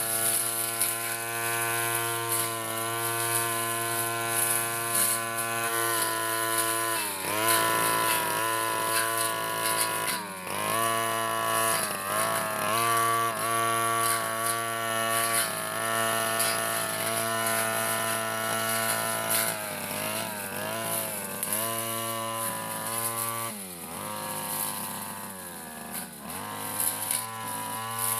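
Backpack brush cutter engine running at high speed while cutting grass, its pitch sagging and recovering briefly several times as the blade takes load.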